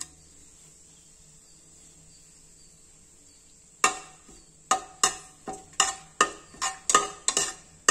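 Slotted metal spatula scraping and knocking against the inside of an aluminium pressure cooker while stirring bay leaves in hot oil. After a faint, near-quiet lull it starts about four seconds in, as a run of sharp clinks about two to three a second.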